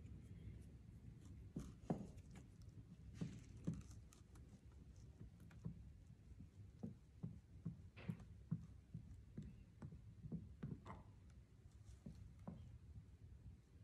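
Faint, irregular soft taps and clicks of a small metal spoon working wet coloured paper pulp, scooped from the palm and dabbed onto a pulp painting.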